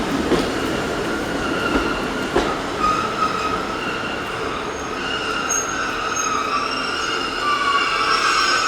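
Passenger train rolling slowly along the rails, with a few sharp wheel clicks early on. Over the second half, a high squeal builds in several wavering tones as the train slows.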